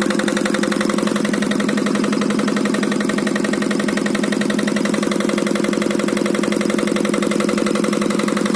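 Generator engine running steadily at constant speed, with a fast, even firing pulse.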